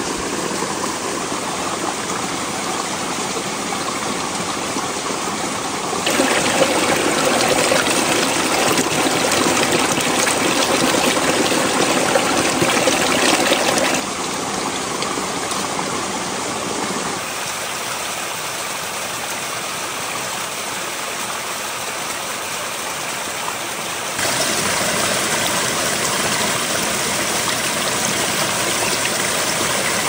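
Spring water running and splashing over rocks in a small mountain stream, a steady rush that jumps louder and softer a few times as the shots change.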